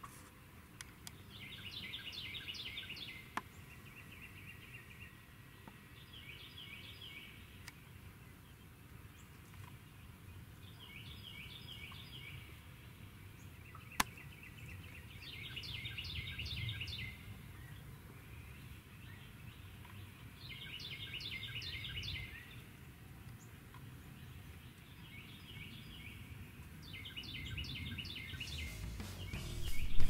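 Wild turkeys gobbling over and over, short rattling gobbles every few seconds. A sharp click about halfway through.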